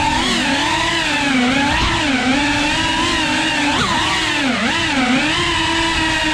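FPV drone's electric motors and propellers whining steadily, the pitch swooping down and back up several times as the throttle changes through its turns.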